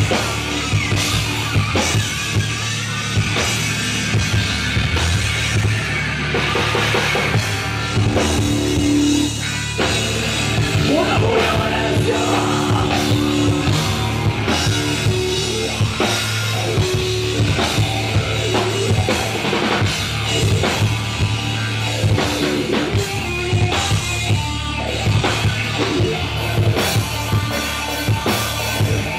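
A rock band playing live: electric guitar and bass guitar over a drum kit, continuous and loud.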